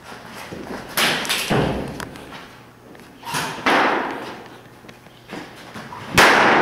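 Sharp cracks and thumps from airsoft play. There are five in all: two pairs, then the loudest near the end. Each rings on with the long echo of a large, hard-walled hall.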